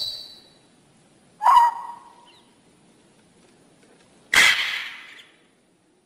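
Amazon parrot calling: a short pitched call about a second and a half in, then a louder, harsh squawk lasting about a second a little after four seconds in.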